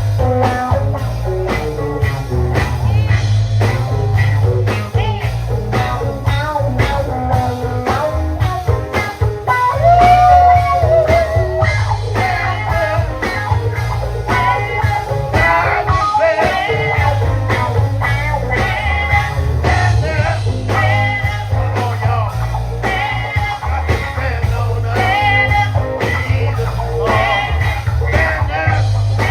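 Live gospel band playing: electric guitar, bass and drums on a steady beat, with a singer's voice over it.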